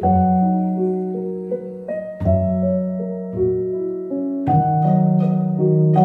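Instrumental background music led by piano, with light, evenly spaced percussive strikes joining about four and a half seconds in.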